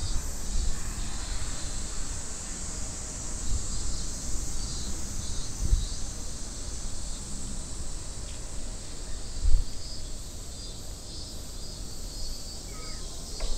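Cicadas droning steadily in the park trees, a continuous high hiss, with a few bursts of low wind rumble on the microphone and a few short chirps near the end.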